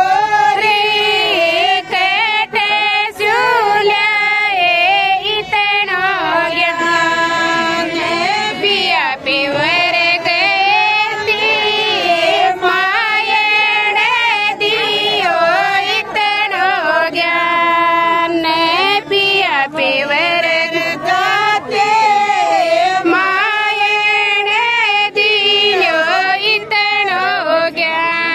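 High female voice singing a Rajasthani bhat geet, the traditional folk song of the bhaat wedding ritual, in one continuous winding melody.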